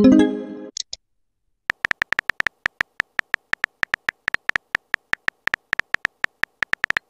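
Text-messaging app sound effects: a short electronic chime as a message goes through, then a rapid run of tonal keyboard-tap clicks, several a second, as a reply is typed.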